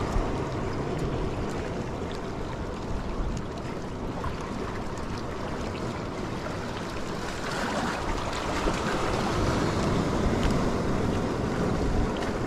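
Wind buffeting the microphone over small sea waves washing against shoreline rocks: a steady rushing noise.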